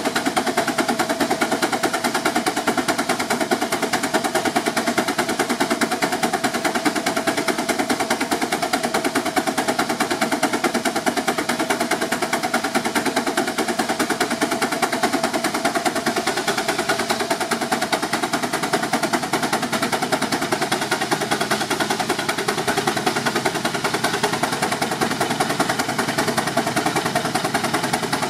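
Advance steam traction engine working under load on a belt-driven dynamometer, its exhaust beating in a rapid, steady rhythm.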